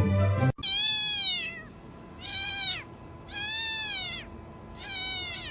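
Background music cuts off about half a second in, then a cat meows four times, each meow rising and then falling in pitch, about a second apart; the first meow is the longest.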